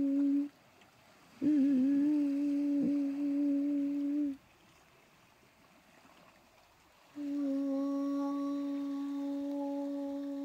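A voice humming one low, steady note with a ring an octave above it. The note breaks off half a second in, comes back about a second later with a brief wobble in pitch and holds for about three seconds, then after about three seconds of near silence it returns near the end with faint higher overtones.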